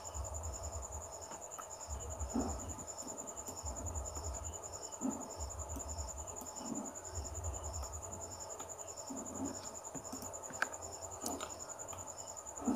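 Faint cricket trill: a steady high tone with a pulse about twice a second, over a low hum that swells roughly once a second. A few faint clicks come near the end.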